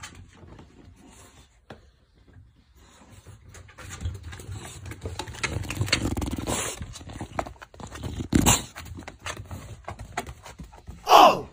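A bulldog snuffling and breathing hard close to the microphone, with a short loud burst of breath about eight seconds in. Near the end, a single loud bark that drops steeply in pitch.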